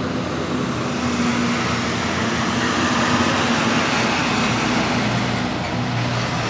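A steady low motor drone over a broad rushing outdoor noise, swelling slightly over the first few seconds and then holding even.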